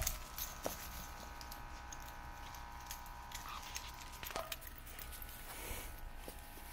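A dog moving about on grass with a stick in its mouth: faint light clicks and rustles. A faint steady tone runs in the background for the first four seconds or so.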